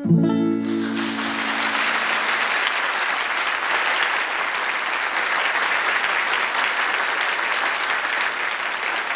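A last strummed acoustic guitar chord ringing out over about two seconds as a studio audience breaks into applause, which goes on steadily.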